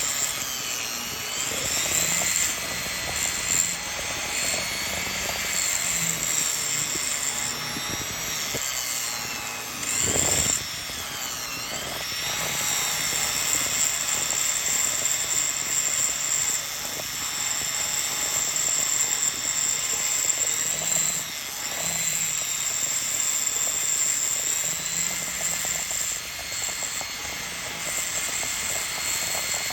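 Dremel rotary tool running with a steady high whine as it grinds and polishes a piece of fire agate. Its pitch dips and recovers a few times, most deeply around ten to twelve seconds in, as the bit is loaded against the stone.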